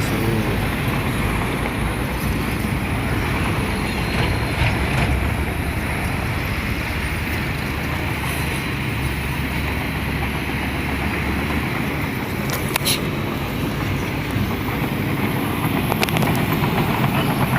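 Excavator's diesel engine running steadily as it digs soil, a heavy continuous rumble, with a couple of sharp metallic clicks near the end.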